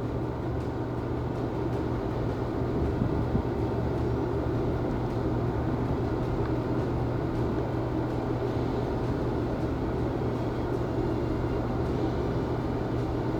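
Steady low hum with an even hiss of background room noise, unchanging throughout.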